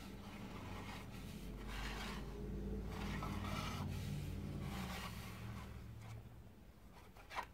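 A plastic figure base being turned by hand on a tabletop: soft rubbing scrapes in several strokes, fading toward the end. A brief sharp click comes near the end.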